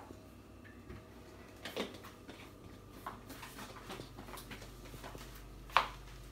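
Faint knocks and handling of plastic kitchenware, then one sharp click near the end as a plastic lid is fitted onto a smoothie bottle.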